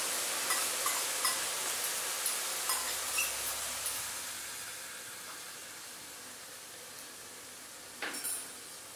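Onion, curry leaves and ginger-garlic paste sizzling in hot oil in a kadai while a wooden spatula stirs and scrapes, with light clinks of utensils. The sizzle dies down after about four seconds, and there is a short clatter near the end.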